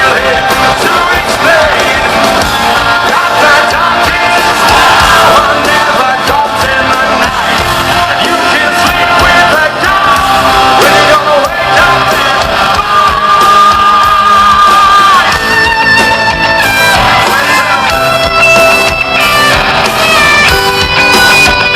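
Live rock band playing in an arena with the singer and crowd singing and yelling along, heard loud through a phone-style recording in a large hall.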